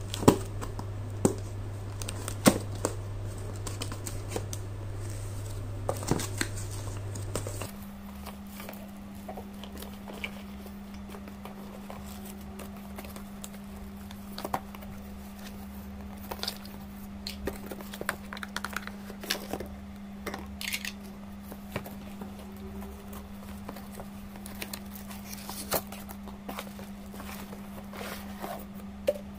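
Unboxing handling noise: plastic bags crinkling, cardboard packaging rustling and hard plastic vacuum parts clicking and knocking against each other and the box, in scattered short sounds. A steady low hum runs underneath and steps up in pitch about eight seconds in.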